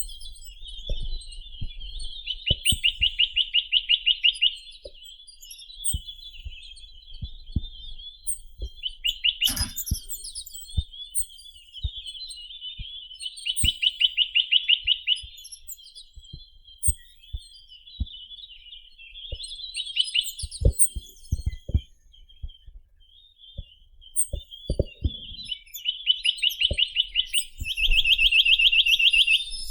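Chinese nuthatch (Sitta villosa) singing: three loud, fast trills of rapidly repeated notes, each about two seconds long, with softer chattering notes in between. Faint low clicks are scattered through.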